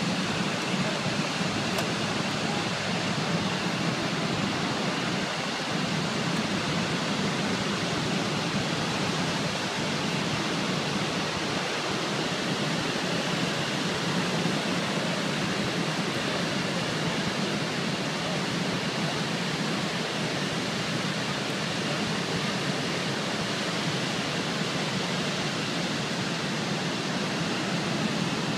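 Niagara Falls pouring into the gorge: a steady, unbroken rush of falling water that does not change.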